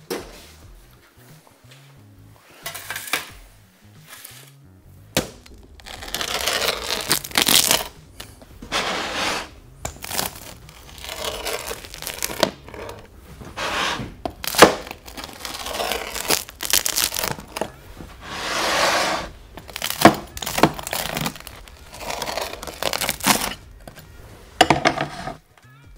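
A pizza wheel cutting a freshly baked pizza with a crisp crust on a wooden board: a dozen or so rolling crunching strokes, each about a second long, with sharp cracks as the crust breaks.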